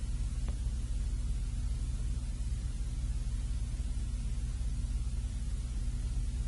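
Steady low hum with a faint hiss, no music; one faint click about half a second in.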